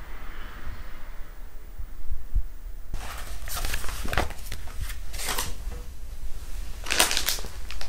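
Faint low thuds at first, then, about three seconds in, paper and a card folder rustling in four or five short bursts as they are picked up, moved and set down on a glass tabletop.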